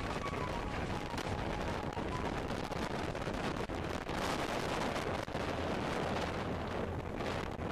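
Wind buffeting the microphone of a camera moving alongside the riders: a steady rumbling hiss with crackle.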